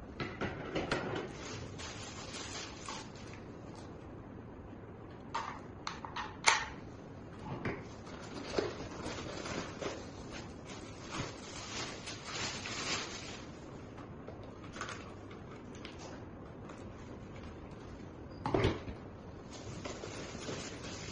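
Handling noises: scattered clicks, knocks and rustles of hard objects being moved and set down, with one sharp click about six seconds in and a heavier knock near the end. No vacuum motor is running.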